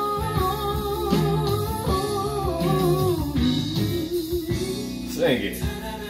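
A soulful ballad: a female singer holds long, wavering sung notes over keyboard and guitar accompaniment, with a low line sliding underneath; about five seconds in, the voice drops steeply in pitch.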